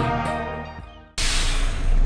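Music fading out over the first second, then an abrupt cut to the steady running noise of a lorry inside its cab, with a strong low engine rumble.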